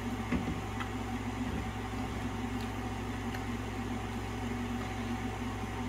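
Steady low background hum of room noise, with a few faint clicks as a small honey jar is handled and turned over.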